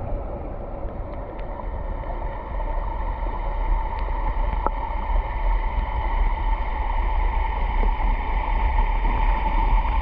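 Stream water below a waterfall heard through a camera held underwater: a muffled, steady rushing rumble with a steady hum over it.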